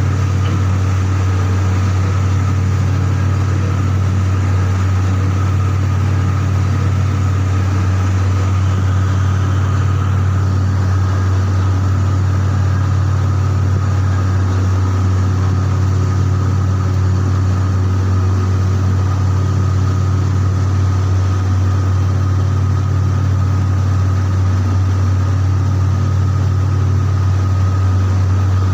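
Industrial machinery running steadily: a loud, unchanging low hum with a faint steady whine above it.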